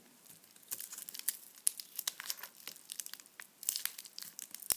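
Packaging crinkling and rustling as a small wrapped item is handled and opened, with many irregular sharp crackles.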